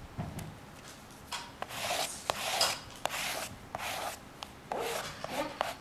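A Pampered Chef plastic pan scraper rubbed in a series of short, scratchy strokes over a sheet of copy paper laid in wet matte gel medium on a stretched canvas, starting about a second in. It is burnishing the image-transfer paper down, working out bubbles so that the image makes full contact with the medium and canvas.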